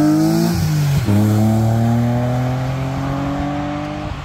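BMW Z3 M Coupe's S52 straight-six accelerating hard past, with an upshift about a second in: the pitch drops and then climbs again more slowly in the next gear, fading a little as the car pulls away.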